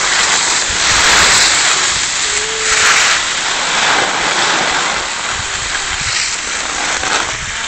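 Rushing hiss of skiing downhill on hard-packed snow: skis sliding and scraping over the groomed piste, with wind buffeting the phone's microphone, swelling louder a couple of times.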